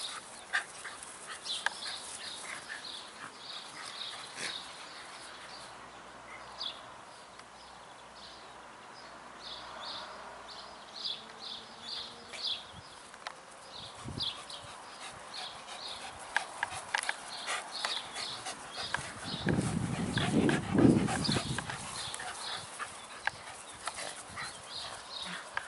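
Two Shetland Sheepdogs play-fighting: short dog vocal sounds and scuffling, with a louder stretch about three-quarters of the way through.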